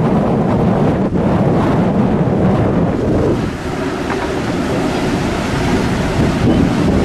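Ferry's propeller wash churning and splashing in a steady rush against the stern of the Mega Express Two as it manoeuvres off the quay, with wind buffeting the microphone.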